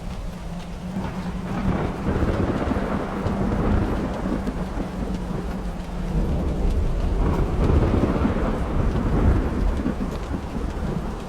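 Steady rain with two long rolls of thunder, the first about two seconds in and the second about seven seconds in.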